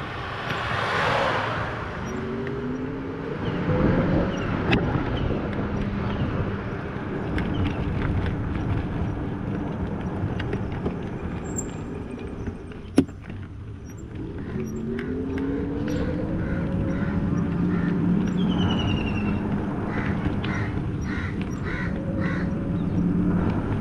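Engine of the vehicle carrying the camera, running over road and wind noise and rising in pitch as it accelerates, once near the start and again past the halfway mark. A single sharp knock a little past halfway.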